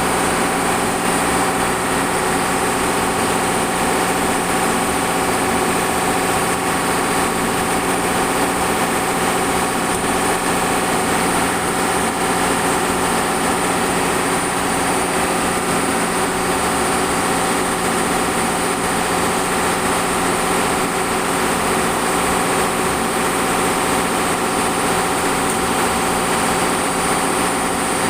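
Shipboard machinery on a longline fishing vessel running steadily: a constant drone with several fixed hums and a high whine, unchanging throughout.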